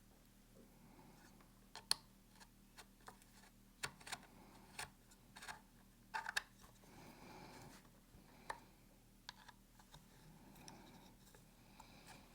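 Faint, scattered clicks and light taps of small screws and a tool being handled while a mounting bolt on a polymer duty holster is swapped for a shorter one.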